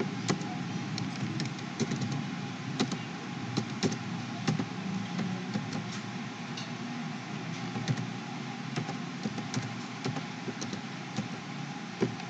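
Computer keyboard keys clicking irregularly as a file name is typed, over a steady background hum.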